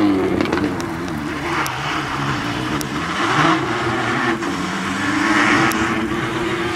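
Citroën DS3 rally car driven hard toward the camera, its engine revs rising and dipping repeatedly through gear changes, over the hiss of tyres on a wet road, with a few short sharp pops.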